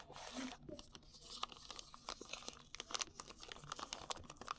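Packaging being handled and unwrapped: plastic and paper rustling and crinkling, with many small clicks and scrapes as the box is opened.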